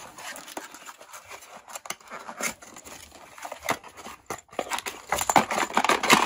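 A white cardboard packing insert is worked loose and lifted out of a cardboard box: card scraping and rustling against card, with many small taps and clicks, getting louder near the end.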